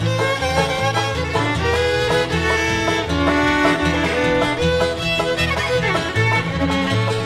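Bluegrass instrumental: a fiddle takes the lead melody with sliding, held notes over a steady rhythm of banjo, guitar and plucked bass.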